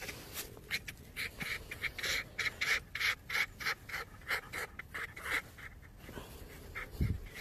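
A canine lying on its back panting quickly in short breaths, about four a second, while a hand rubs it, with dry leaves rustling under it. A low thump comes near the end.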